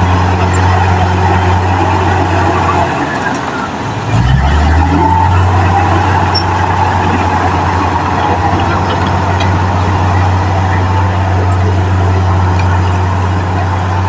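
Heavy diesel engine of a construction machine running under steady load with a deep, constant hum. It eases off about 3 s in and comes back up about 4 s in.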